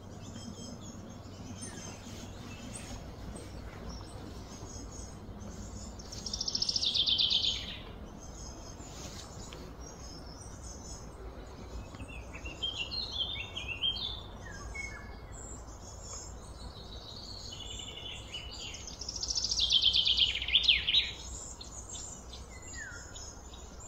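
Wild songbirds singing: two loud bouts of rapid notes sliding downward in pitch, about six seconds in and again near the end, with scattered chirps between them, over a steady low background hum.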